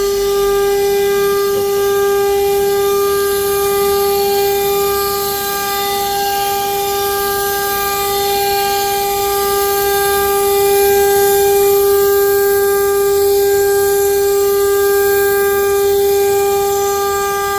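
Heliner CNC router's spindle running at maximum speed while cutting MDF at 6 metres per minute: a loud, steady high whine with a hiss from the bit in the board that swells and eases slightly.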